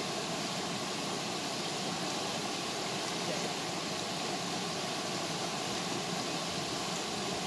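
Steady rushing of a small waterfall cascading into a stream pool.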